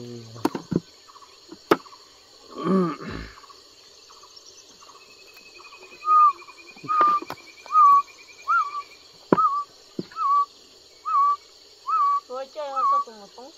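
A bird calling a run of about a dozen short whistled notes, evenly spaced at roughly one every three-quarters of a second, starting about six seconds in. Beneath it runs a steady high buzz of insects.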